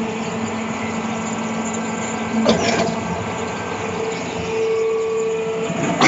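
Small portable concrete pump running with a steady mechanical drone and hum, with a sharp clunk about two and a half seconds in and another at the very end.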